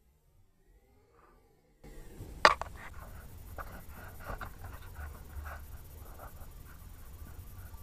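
Near silence for about two seconds, then the handling noise of a scoped air rifle being brought onto a target: one sharp knock, followed by scratchy rustling and light clicks over a low hum.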